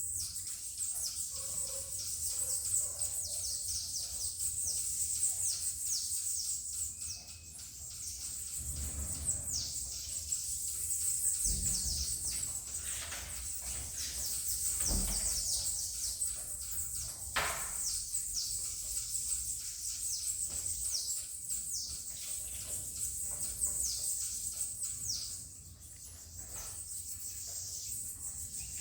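Many saffron finches chirping: quick, high, down-slurred calls overlapping almost without pause, over a steady high hiss. A few low thumps about a third and halfway through.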